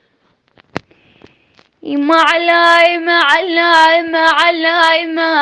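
Brief pause with a single click, then from about two seconds in an unaccompanied woman's voice chanting an Iraqi Shia lament (nai), holding long, steady notes with wavering ornaments.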